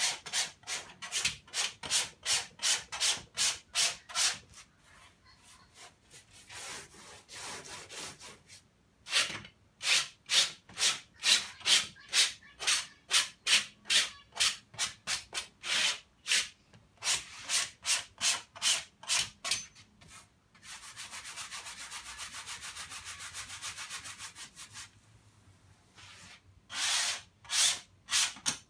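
Paintbrush scrubbing oil paint back and forth on unstretched canvas, in rhythmic scratchy strokes about two a second. The strokes pause for a few seconds, then turn into a rapid continuous scrubbing for about four seconds before slowing to single strokes again.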